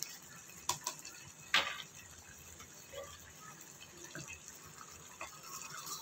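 Curry simmering in a clay pot on a gas flame with a faint bubbling, broken by a few short sharp clicks and taps, the loudest about one and a half seconds in. A ladle stirs through the thick curry near the end.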